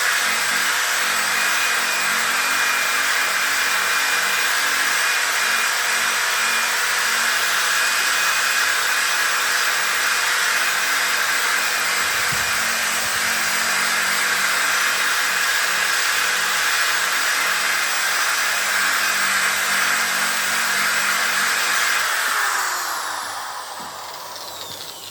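Electric power tool motor running steadily at high speed, then winding down over the last few seconds as it is switched off.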